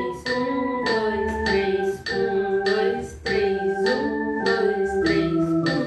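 Electronic organ playing a slow hymn in held chords, with a woman's voice singing along, over a metronome clicking steadily about once every two-thirds of a second.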